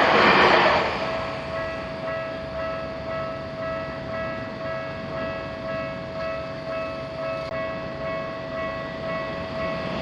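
Japanese level-crossing warning alarm ringing its steady, evenly repeating electronic ding. A passing train's noise fades out about a second in, and the noise of a train rises again near the end.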